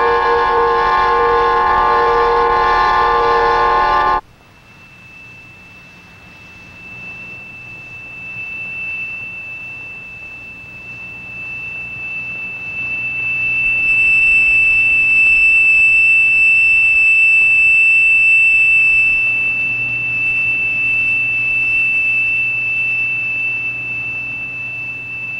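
Film score: a sustained chord of several held notes cuts off about four seconds in. It gives way to one high, steady tone held for about twenty seconds, which grows louder toward the middle and eases off near the end.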